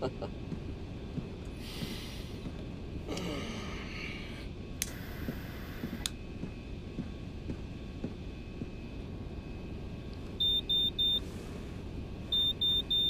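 Cockpit warning alarm sounding two sets of three short high beeps near the end, over the steady low drone of an aircraft cabin in flight.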